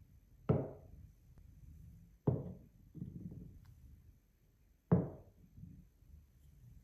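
Balls knocking onto a handmade wooden marble-run slope: three sharp wooden knocks, each dying away quickly, with a low rumble of rolling between the second and third.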